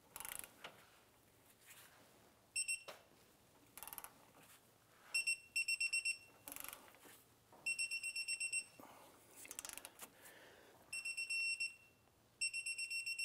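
An electronic torque wrench beeps in rapid, high-pitched pulse trains, five or six times in a row, signalling that it has reached the set 47 foot-pounds on the outer tie rod castle nut. Short wrench clicks and handling knocks fall between the beeps.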